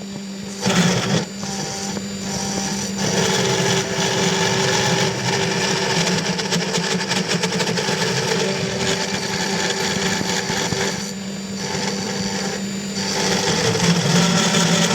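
CNC 3020 Plus desktop router's 500 W spindle running with a steady whine while its end mill cuts aluminium, the cutting noise changing several times as the tool moves through its passes.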